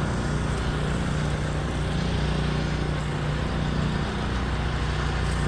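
Steady, unchanging engine-like drone of the gold ore milling plant's running machinery.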